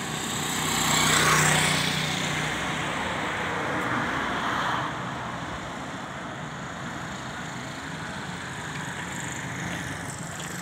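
A motorcycle passes close by on the road, its engine and tyre noise swelling to a peak about a second in and then fading. A second, weaker swell of passing-traffic noise follows a few seconds later, over a steady low traffic hum.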